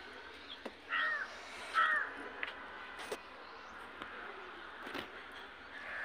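Crows cawing: two loud caws about one and two seconds in, then a fainter caw near the end.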